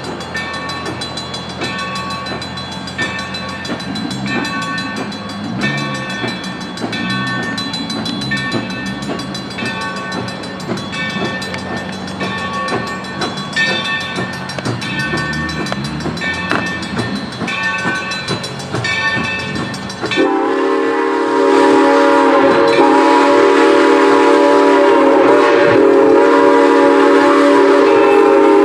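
A railroad crossing bell rings in a steady repeating pattern as steam locomotive New Haven 3025 approaches the grade crossing. About two-thirds of the way through, the locomotive's steam whistle comes in suddenly and loudly, sounding one long, steady chord-like blast for about eight seconds for the crossing.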